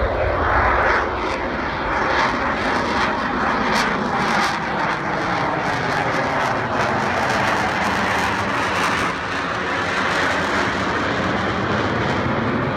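McDonnell Douglas F/A-18 Hornet jets in flight: loud, steady jet engine noise.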